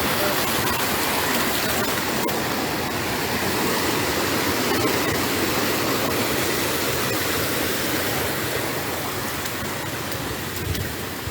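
Floodwater rushing: a steady, even rush of moving water that eases a little near the end.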